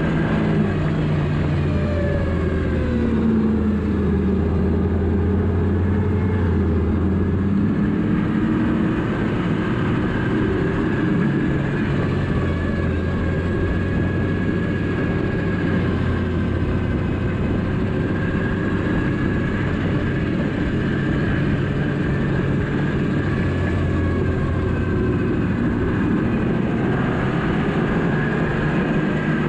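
Yamaha four-stroke snowmobile engine running steadily at trail speed, heard from the rider's seat, its pitch shifting up and down in the first several seconds and then holding level, with a steady higher whine over the engine note.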